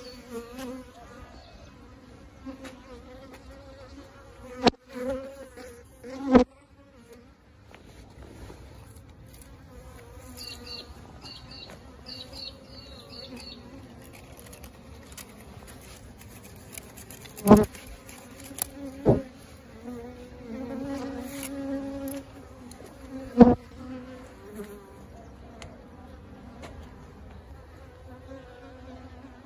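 A swarm of bees buzzing steadily around their nest in a brick wall, the buzz wavering in pitch as bees fly close past. Several sharp knocks stand out above the buzz as the loudest sounds.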